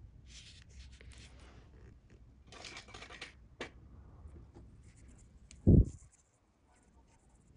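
Fingers working braided fishing line while tying a carp hair rig: two bursts of dry rustling and rubbing, then a small click. About three-quarters of the way through comes a single loud, dull thump, the loudest sound, and after it things go almost silent.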